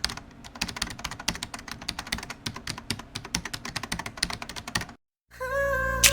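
Rapid, irregular typing clicks on a keyboard, stopping about five seconds in; after a short silence, music begins with sustained notes and a sharp hit near the end.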